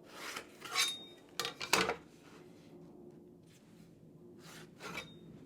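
Plywood parts being shifted and set in place on a plywood base: a few short scrapes and light knocks, the loudest about a second and a half in and another near the end.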